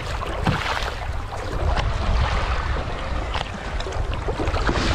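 Wind buffeting the microphone with a steady low rumble, over water splashing and slapping against a small boat's hull in short irregular bursts.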